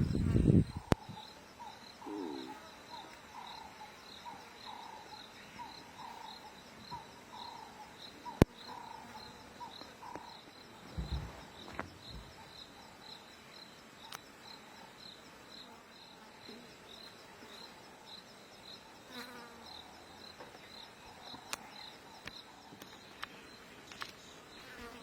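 Insects chirping in a steady, high-pitched pulse, roughly two chirps a second, in the bush. A second, lower pulsing call joins for the first ten seconds or so, with a few sharp clicks and one brief low thump.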